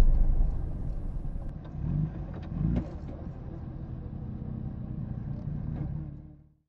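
Sport motorcycle engine running at speed, heard from the bike's onboard camera, loud at first and dying away, with two short swells a couple of seconds in. The sound fades out shortly before the end.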